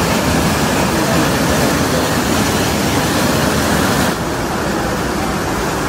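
Waterfall rushing, a loud steady noise of falling water. About four seconds in the sound changes slightly and the high hiss drops a little.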